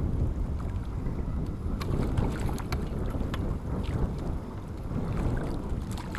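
Wind buffeting the microphone in a steady low rumble, with a few light clicks scattered through it.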